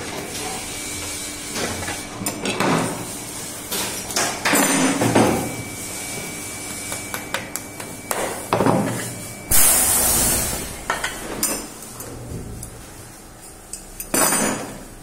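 Shoemaker's hammer tapping tacks into a shoe last as the leather upper is pulled over it, in scattered sharp taps among handling and rustling of the shoe. A short hiss about ten seconds in.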